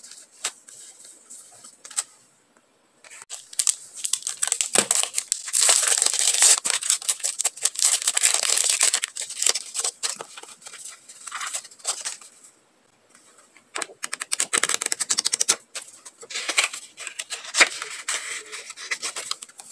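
Close-miked crinkling and rustling of paper stickers, a plastic sleeve and a paper memo pad being handled, in a few long stretches of dense crackle with short quiet gaps between them.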